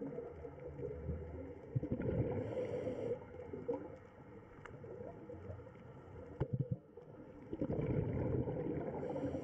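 Muffled underwater water noise, a low uneven rumble with gurgling. A short high hiss comes about two seconds in and another near the end, with a few sharp clicks a little past the middle.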